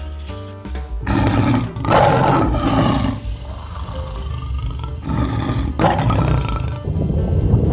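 A large animal roaring: several long, rough roars, with a low rumble growing near the end.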